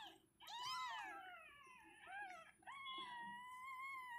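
Newborn kittens, eyes not yet open, mewing in several high-pitched cries. There is a falling cry near the start and a brief one midway, then a long cry held steady near the end. These are the distress cries of kittens left without their mother.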